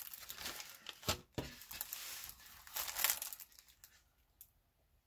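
Clear plastic film crinkling and rustling as a plastic-covered diamond painting canvas is handled and pressed flat, with sharp crackles; it dies down to a few faint ticks after about three seconds.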